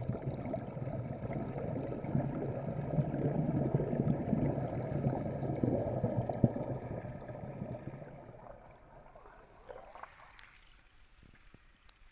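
Churning water and streams of bubbles heard from under water, muffled and dense. The sound dies away over the last few seconds, leaving only a few faint ticks.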